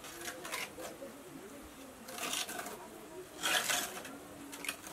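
Trowel scraping wet mortar while bricklaying, two short rasping scrapes about two and three and a half seconds in, the second louder, over indistinct voices.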